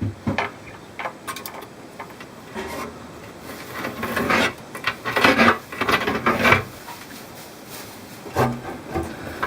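Rough scraping or rubbing strokes, several in a row, loudest and most frequent in the middle.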